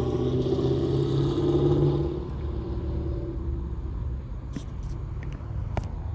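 A motor vehicle driving past on a nearby road: a steady engine hum that is loudest about two seconds in, then fades away over the next second or so. A few light clicks follow near the end.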